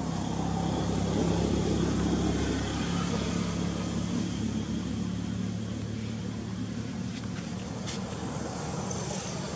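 Steady low hum of a motor vehicle's engine. It swells about a second in, then eases off slightly.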